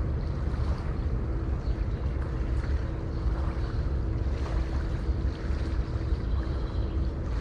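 Sea waves washing continuously, with a deep rumble and a faint steady hum underneath.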